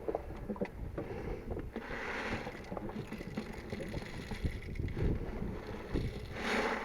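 Rustling and irregular small knocks of movement close to the microphone, over a low rumble of wind on the microphone, with two brief swells of hiss.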